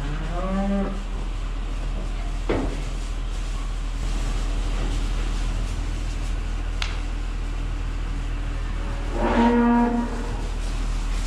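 Holstein cows mooing: a short moo at the start and a louder, longer moo about nine seconds in, over a steady low rumble.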